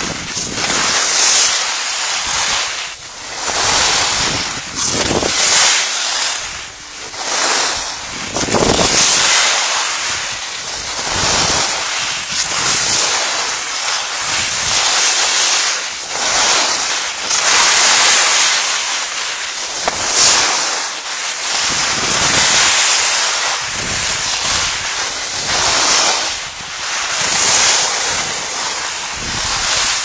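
Skis hissing and scraping over snow on a downhill run, swelling and fading about every one to two seconds with the turns, mixed with wind rushing over the microphone.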